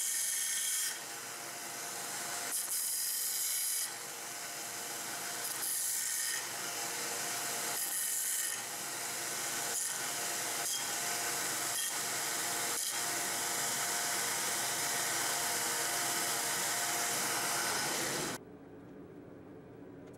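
1x30 belt grinder running with a fresh 60-grit belt, grinding the end of a 3/8-inch mild steel bar square: a steady motor hum under a rasping hiss that swells each time the steel is pressed to the belt, with a few light knocks. Near the end it cuts to a much quieter steady hiss from the gas forge.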